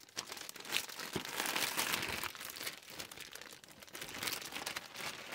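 Thin clear plastic bag crinkling and rustling as it is pulled off a zippered tool case and handled, with many small crackles. It is busiest in the first couple of seconds and quieter later.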